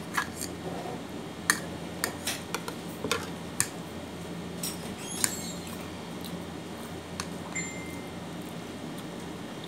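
A person eating noodles: wet chewing and smacking mouth sounds with sharp clicks, most of them in the first half, over a steady low hum.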